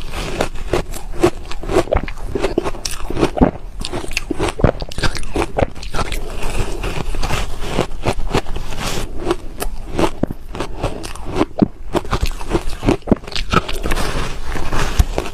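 Frozen matcha ice bites being bitten and chewed close to the microphone: a dense, irregular run of loud crunches and cracks as the ice breaks between the teeth.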